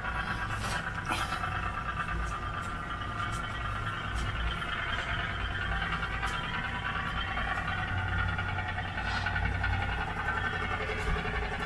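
Small steam engine of a 1930s CK Miss Liberty tin-plate toy speed boat running steadily as the boat motors across the water.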